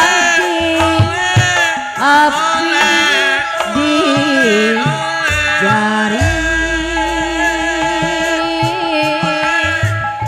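Live Sundanese gamelan music: bronze kettle gongs (bonang) struck in a steady pattern under a man's gliding, ornamented singing. A deep low tone sets in about six seconds in.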